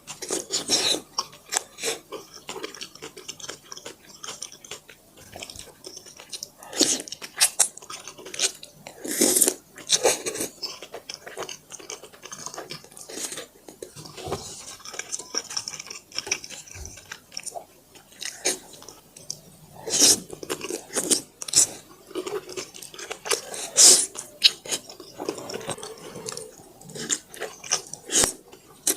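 Dumplings being chewed close to the microphone: an irregular run of sharp mouth clicks and bites, with a few louder ones scattered through.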